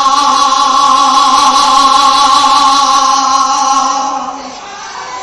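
A man's voice singing one long held note into a microphone over the hall's PA, in Baul-song style, fading out about four seconds in.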